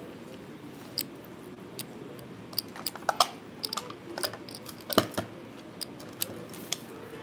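Casino chips clicking against one another as they are handled at the chip stack: a scattering of short, sharp clicks, the sharpest about five seconds in, over a steady background hum.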